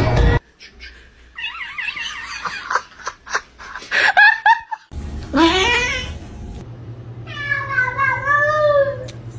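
Domestic cats yowling: several long, drawn-out meows whose pitch wavers and bends up and down. A burst of music cuts off just after the start.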